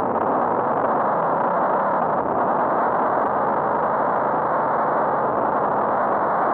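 Steady rushing road noise picked up by a cyclist's helmet camera while riding in traffic, with a faint engine hum from nearby vehicles underneath.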